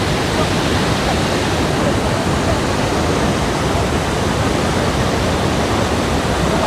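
Athirappilly Falls, a large waterfall on the Chalakudy River, rushing steadily: an even, loud wash of falling and flowing water.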